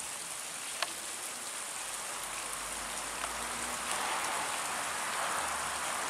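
A steady rushing noise, like water or leaves in the wind, swelling slightly about four seconds in, with one short sharp tick near the start.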